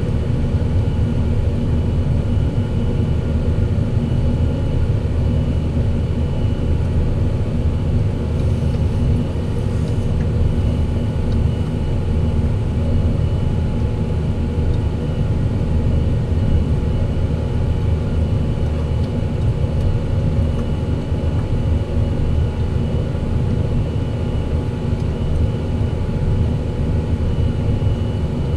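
Fendt 718 Vario tractor's six-cylinder diesel engine running steadily under load while pulling a plough, a constant low drone with a faint steady high whine above it.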